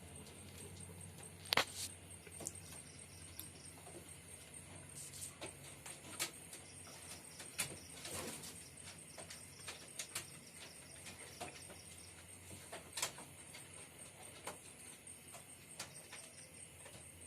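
Pigeons moving about: scattered light taps and clicks, irregular and fairly faint, over a low steady background.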